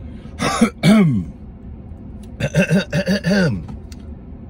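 A man clearing his throat: two hard, raspy clears about half a second in, then a quicker run of four shorter throat-clearing pulses around two and a half seconds in.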